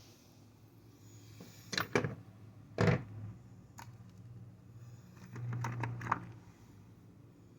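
Metal sockets clicking and tapping against a plastic tool case as they are handled and fitted into place: a pair of clicks about two seconds in, a louder click near three seconds, and a cluster of small clicks near six seconds.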